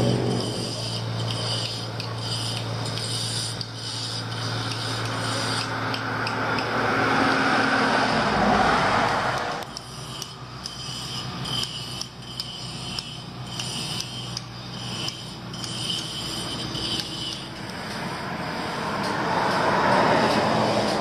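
Road traffic passing close by: a vehicle swells up and goes past about nine seconds in, its sound falling in pitch and cutting off sharply, and a second vehicle swells up near the end, over a steady rushing background.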